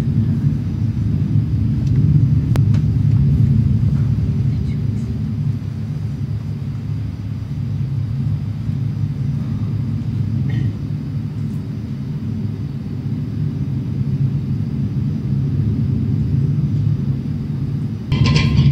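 A loud, steady low rumbling drone in the stage music. About 18 seconds in, brighter music with plucked-string tones comes in on top of it.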